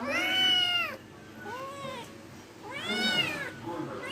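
Domestic cat meowing three times: a loud meow, a short faint one about a second and a half in, and another loud meow near the end, each rising then falling in pitch.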